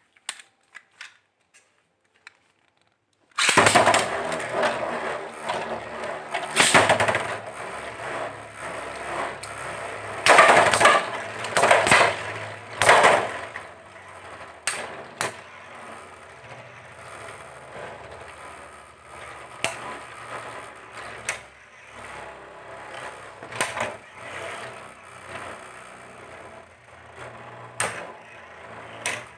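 A few light plastic clicks, then about three seconds in two Metal Fight Beyblades (Lightning L-Drago 100HF and Rock Leone 145WB) are launched into a plastic stadium. Their metal wheels spin and scrape with a continuous rattle, clashing loudly several times in the first ten seconds, then settle into a quieter whir broken by occasional sharp hits.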